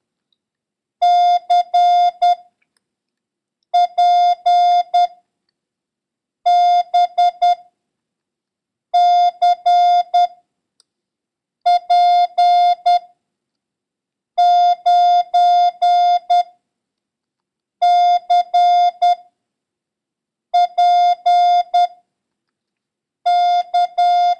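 Morse code practice tone sending single characters one after another: nine groups of dots and dashes on one steady pitch, with a pause of about a second between characters. It is a copying run drilling the letter C mixed with other letters and numbers.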